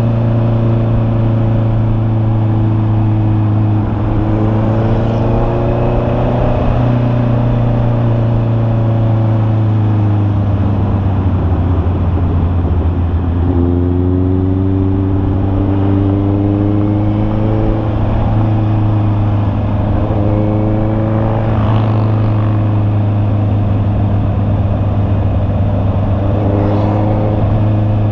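Honda CB650R's inline-four engine pulling on the move, its pitch climbing as the bike accelerates and dropping back at each gear change, several times over.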